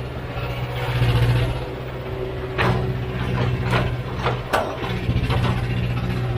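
Heavy diesel engine of an earthmoving machine running steadily at a low drone, with a few sharp metallic knocks or clanks around the middle.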